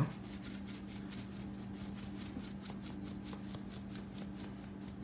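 Seasoning shaker of salt, pepper and garlic blend shaken over a raw salmon fillet, the granules rattling in an even rhythm of about five shakes a second. A steady low hum runs underneath.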